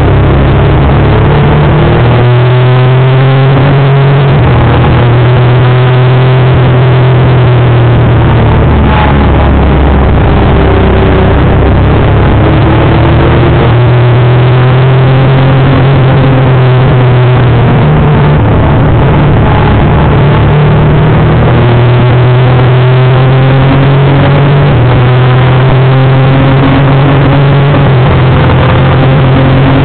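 Honda CBR250R (MC19) 250 cc inline-four engine heard on board at racing speed. Its pitch climbs and drops back again several times as it changes gear, over heavy wind noise.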